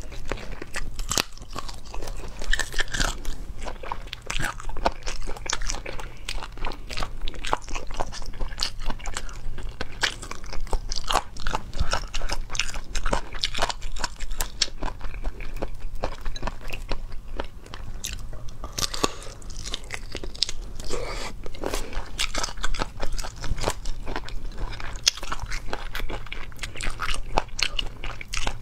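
Chewing and biting into braised chicken feet: many short, crunchy clicks and wet mouth sounds from skin and cartilage, without pause.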